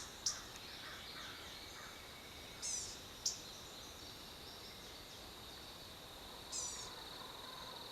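Outdoor ambience: a songbird giving a short, quick downward-sweeping call twice, about four seconds apart, over a steady high trill. Two sharp clicks come about a third of a second and three seconds in.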